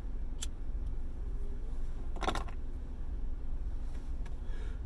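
A man smoking a cigarette: a faint click, then one short breathy puff as he exhales smoke about two seconds in, over a steady low hum.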